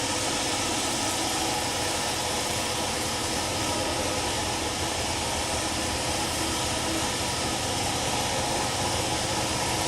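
A steady hum with hiss that holds unchanged throughout, with no knocks or clanks.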